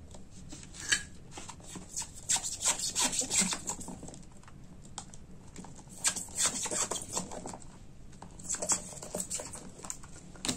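Plastic toy knife cutting through soft slime on a plastic toy cutting board: sticky squishing, with light taps of the blade on the board. The cutting comes in three short bursts, about two, six and eight and a half seconds in.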